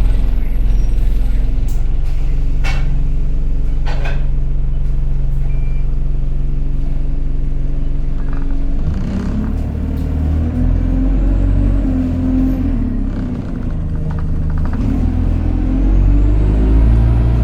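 Alexander Dennis Enviro200 single-deck bus engine heard from inside the bus: a steady idle hum, then about nine seconds in it revs up and pulls away, its pitch rising and falling through the gears, with a faint high whine. Two sharp knocks a few seconds in.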